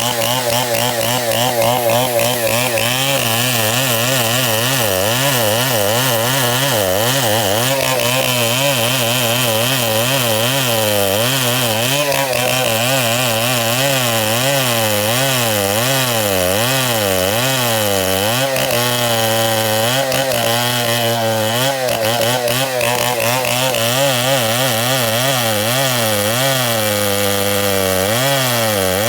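Chainsaw running at high speed while cutting wood, its engine pitch wavering up and down steadily as the load on the chain changes.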